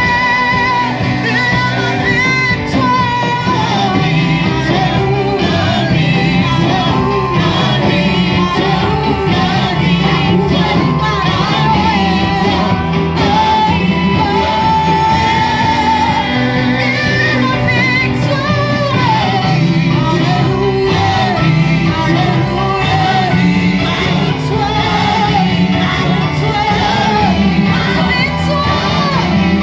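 Church worship music: singing over a band with a steady bass line, with some shouting.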